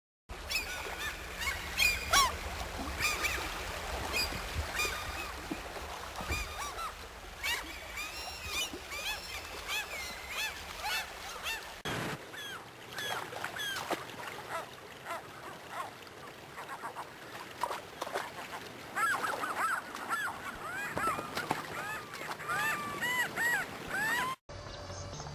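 A flock of waterfowl calling, many overlapping honks one after another. About halfway through the low background hum changes, as at a cut, and the calls carry on.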